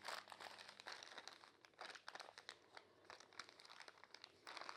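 Faint crinkling and scattered light clicks, just above near silence, from the plastic packaging of a hydraulic seal kit being handled.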